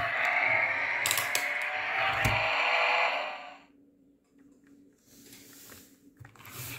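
2011 Hess toy race car's electronic race-car engine sound effect playing through its small built-in speaker, with a few sharp clicks over it; it cuts off about three and a half seconds in. Light clicks and handling noises from the toy follow near the end.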